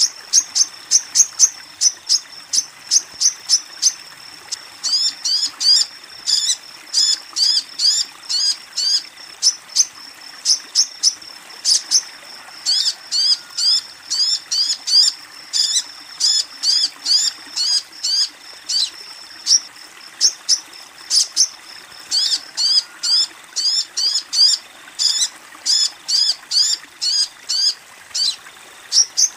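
Female sogon (little spiderhunter) calling: long runs of short, sharp, high chirps, about four to five a second, with brief pauses between runs, over a faint steady trickle of running water. It is a lure call meant to draw in males.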